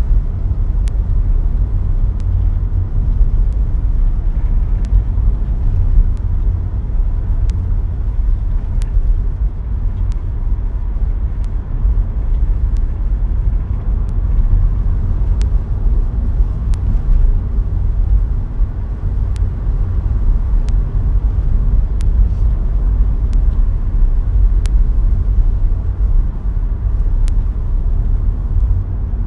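Car driving steadily on a tarmac road: a continuous low engine and tyre rumble, with faint light ticks about once a second.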